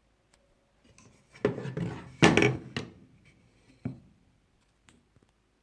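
Old hand tools being handled and set down: two scraping, clattering bursts between about a second and a half and three seconds in, then a single sharp knock about four seconds in, with a few faint ticks.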